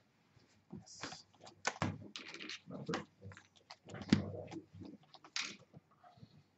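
Hands handling playing cards and coin-like credit tokens on a cloth playmat: a scattered run of soft clicks, light clinks and short card-sliding scrapes, the sharpest about four seconds in.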